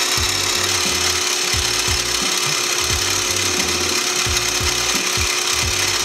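Benchtop mini lathe running and cutting a small steel dowel pin, with a steady motor whine and cutting hiss. Background music with a steady bass beat plays underneath.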